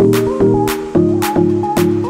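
Background electronic music with a steady beat and sustained synth chords.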